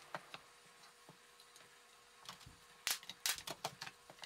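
Plywood drawer pieces handled and set down on a drop-clothed floor. There are a few light knocks and taps, most of them in a quick cluster about three seconds in.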